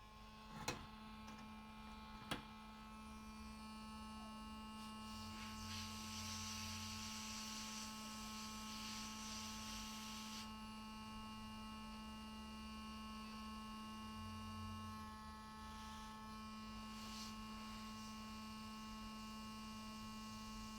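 Steady electrical hum with a thin, higher whine over it, coming on at the outset, with two light clicks in the first few seconds.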